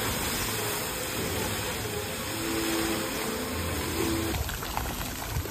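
Water jets of a large plaza fountain rushing and splashing steadily into the basin, easing a little near the end.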